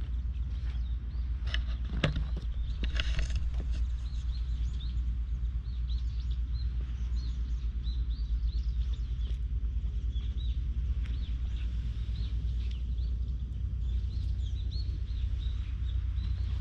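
Outdoor ambience: a steady low rumble with many short, high chirps of small birds over it, and a brief rustle about three seconds in.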